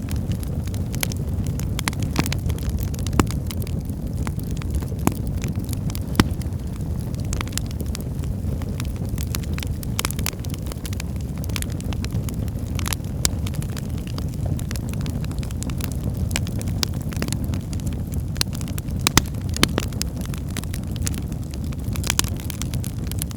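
Wood fire burning in a fireplace: a steady low roar of flames with irregular crackles and sharp pops from the burning logs.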